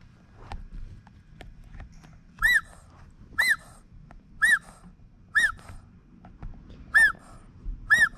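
Rubber chicken squeaker toys squeezed by hand, giving six short squawks about a second apart, starting a couple of seconds in. Each squawk rises and falls in pitch, with faint rubbery handling noises between.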